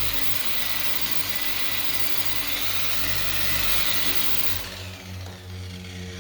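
Variable-speed orbital sander with a soft pad, sanding skim-coated body filler on a car door: a steady whirring hiss that stops about four and a half seconds in, leaving a lower hum.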